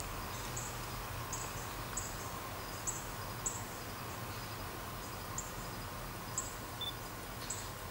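A cricket chirping outdoors: short high chirps about once a second, over a steady low hum.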